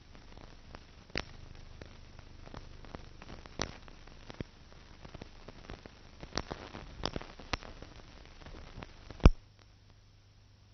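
Surface noise of an old silent-film transfer: faint hiss with scattered sharp clicks and pops, the loudest a single pop near the end, after which only a faint low hum remains.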